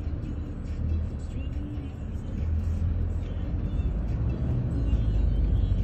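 Low, steady engine and road rumble of a moving vehicle heard from inside its cabin, growing a little louder about halfway through and again near the end.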